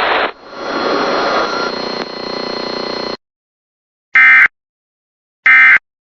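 Radio static hiss that cuts off abruptly about three seconds in. After a moment of silence come two short, identical bursts of Emergency Alert System SAME digital data tones about a second apart: the end-of-message signal that closes an EAS alert.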